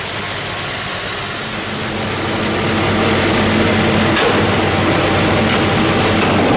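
1947 Ford half-ton pickup's flathead V8 idling steadily, getting a little louder about two seconds in, with a few light clicks in the second half.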